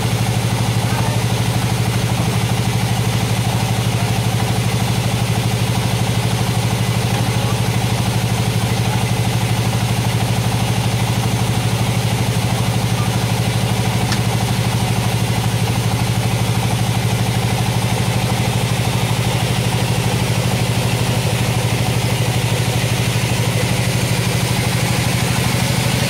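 Sawmill's stationary engine running steadily at idle, with a fast, even low chug.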